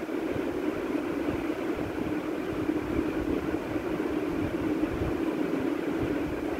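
Potato patties sizzling as they shallow-fry in a little oil in a nonstick pan, over a steady low hum.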